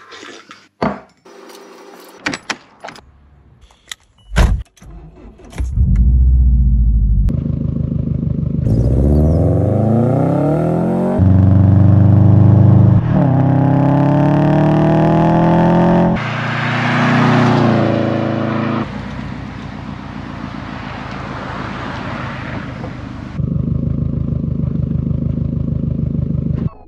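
A car engine starts after a few sharp clicks and is revved, its pitch climbing on each rev, then settles into a steadier, lower run that picks up again near the end.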